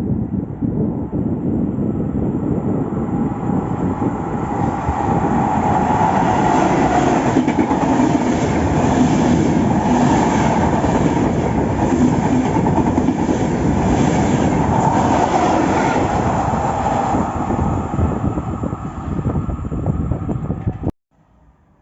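A train passing at speed, the rumble and clatter of its wheels over the rails swelling to a peak and then fading. It cuts off suddenly near the end.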